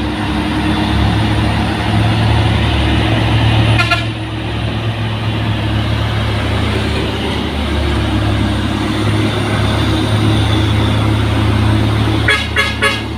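Heavy diesel trucks, among them an Isuzu refrigerated truck and an orange Mitsubishi Fuso, grinding slowly up a steep climb in a convoy with a steady low engine drone. Short sharp sounds come through about four seconds in, and a quick run of them near the end.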